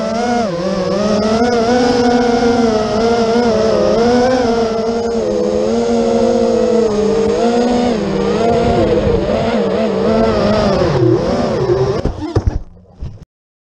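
FPV quadcopter's brushless motors whining, the pitch rising and falling with the throttle through the flight. About twelve seconds in the quad goes down into the grass: the whine falters into a few knocks and then cuts off suddenly.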